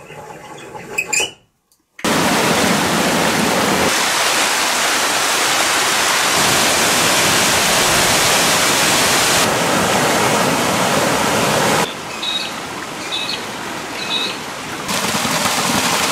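Storm run-off water rushing: a swollen waterfall pouring down a rocky gully and stormwater gushing out of a culvert pipe, a steady loud rush that changes level at cuts. During a quieter stretch near the end, three short high chirps sound over the water.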